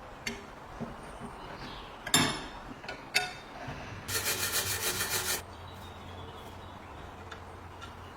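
Parts of an old bread cutter being worked by hand: a few sharp knocks and clinks, the loudest about two seconds in, then about a second of quick, even scraping strokes, about eight a second, that stop abruptly.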